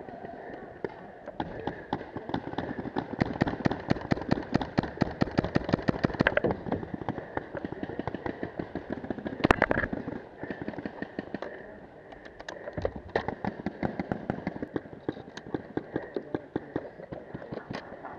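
Paintball markers firing rapid strings of shots, several pops a second, with one louder sharp crack about halfway through.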